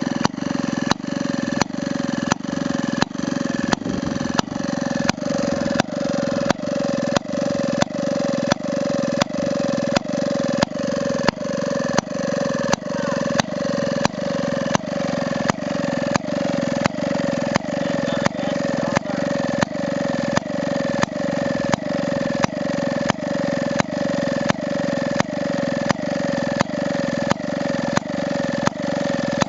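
Maytag Multi-Motor two-stroke gasoline engine running steadily, with sharp regular pops about one and a half to two times a second over a constant drone.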